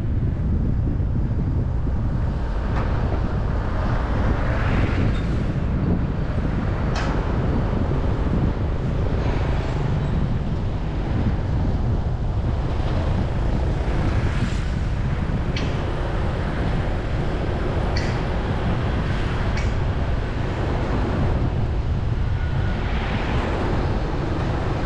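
Steady low rumble of wind on the microphone and road noise from travelling along a city street, with traffic passing now and then and a few faint clicks.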